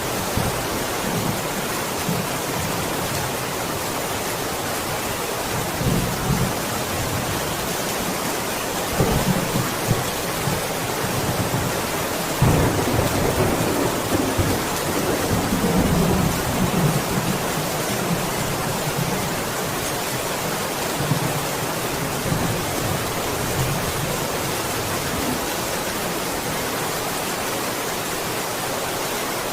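Steady heavy rain, with rumbles of thunder rolling through it, the strongest starting about twelve seconds in and lasting several seconds.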